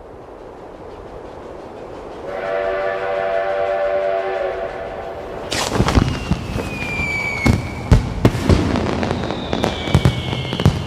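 A rising rush of noise, then a multi-note horn chord blaring for about three seconds, followed by a rapid series of sharp bangs and crashes with whistling tones gliding downward: animated action sound effects.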